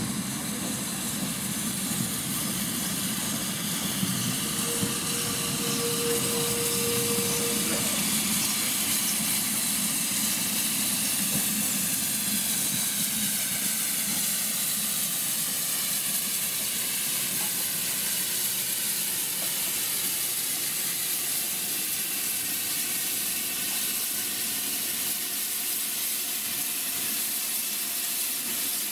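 LNER K4 steam locomotive rumbling to a stand at the platform, with a steady squeal lasting about three seconds around five seconds in. It then stands with steam hissing steadily, its safety valves blowing off.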